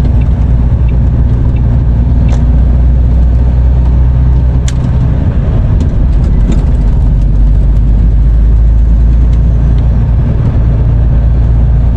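Lorry's diesel engine and road noise heard from inside the cab while driving, a steady low rumble with a few light clicks.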